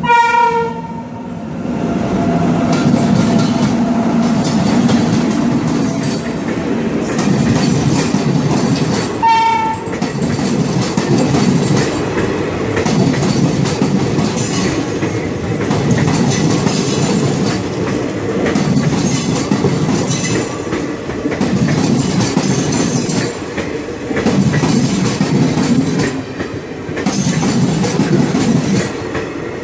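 Passenger express hauled by a WAP-7 electric locomotive, passing close by with a continuous rumble and clickety-clack of wheels over the rails that swells and dips every couple of seconds. A train horn sounds briefly at the start and again, shorter, about nine seconds in.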